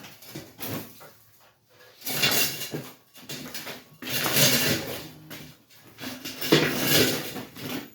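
A heavy bench vise and grinder on their stand dragged across the shop floor, scraping in three rough pulls of about a second each.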